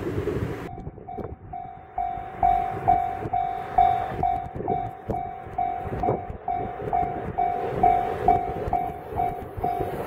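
Japanese railway level-crossing alarm ringing, a repeated electronic ding about two to three times a second that starts about a second in, warning of an approaching train, over a low rumble.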